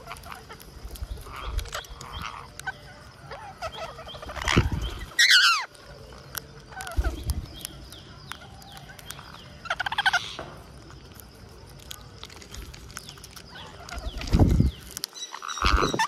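Rose-ringed parakeets feeding, with scattered clicks of beaks cracking peanut shells and a few harsh calls: a falling screech about five seconds in and a pulsed squawk about ten seconds in. A few low thumps close to the microphone.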